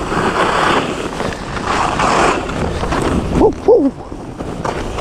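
Skis scraping over hard, crusty snow, the scrape swelling and fading with each turn, mixed with wind on the helmet camera's microphone. About three and a half seconds in, a short two-note "oh, oh" exclamation cuts through.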